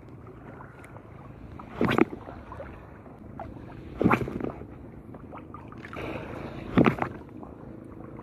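Shallow seawater washing and lapping, with three short, loud splashes about two to three seconds apart.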